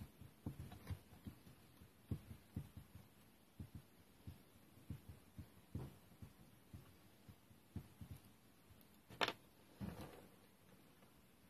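Faint, irregular clicks and knocks of small metal parts and tools being handled on a strimmer's two-stroke engine, with one sharper click about nine seconds in.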